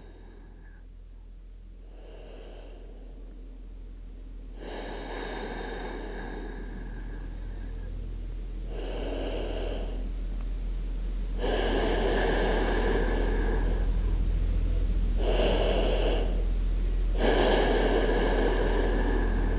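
A person breathing slowly and deeply in a yoga child's pose: about five audible breaths, shorter ones alternating with longer ones, a few seconds apart. A steady low hum runs underneath and grows louder.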